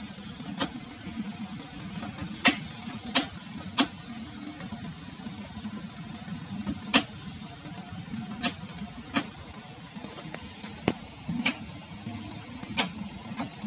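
A pot of creamy bilo-bilo boiling: a steady low bubbling rumble with sharp pops of bursting bubbles at uneven intervals, about a dozen in all.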